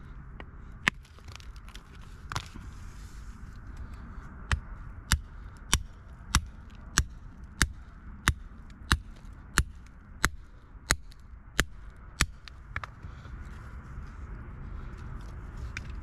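Hammer striking rock: two single blows in the first few seconds, then a steady run of about a dozen sharp blows, about three every two seconds, stopping a little after halfway.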